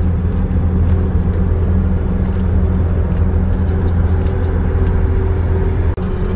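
Bus motorhome's engine running at a steady pitch on the road, a low drone with road noise heard inside the cab. The sound breaks off for an instant near the end.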